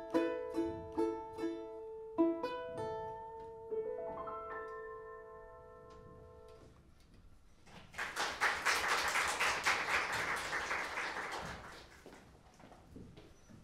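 A plucked string instrument with piano ends a piece: quickly repeated plucked notes, then a few closing chords that ring and fade. After a short pause, audience applause for about four seconds.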